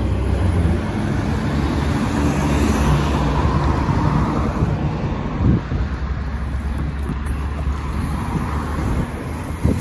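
Sinara-6254 trolleybus on the move: a steady low rumble of running and road noise with a faint motor hum. There is a knock about five and a half seconds in and another near the end.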